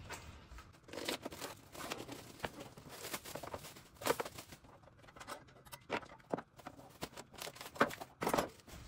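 Irregular rustling and tearing of packaging, with light clicks and knocks of loose parts being handled as a dish drainer is unpacked for assembly.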